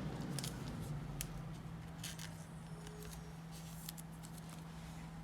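Faint scattered clicks and rustles of trading cards and their packaging being handled, over a steady low electrical hum.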